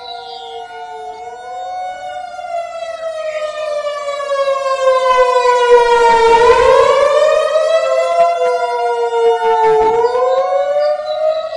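Federal Signal 2001-DC electronic outdoor warning siren sounding its synthesized attack signal: a chord of several wailing tones glides down and back up in pitch, growing louder about halfway through.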